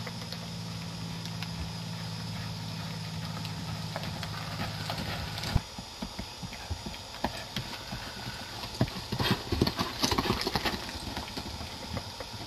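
Horse hooves clopping on hard ground in uneven steps, busiest about three-quarters of the way through. Under them, a steady engine hum runs until it cuts off about halfway.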